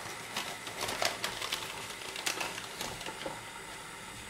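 Light, irregular clicks and taps of a teaspoon and a cornflour container being handled as cornflour is scooped out; the taps thin out in the last second.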